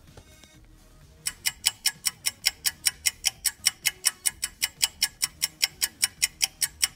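Rapid, even clock ticking, about six ticks a second, starting abruptly about a second in: a sound effect standing for time passing while waiting.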